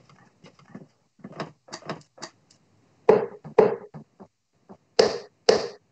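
Darts striking a bristle dartboard: a run of short, sharp knocks, faint at first, then four loud ones in two pairs about half a second apart in the second half.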